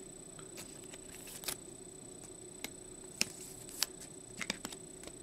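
Trading cards being handled on a tabletop: a scattering of soft clicks and taps as cards are picked up, set down and squared into stacks.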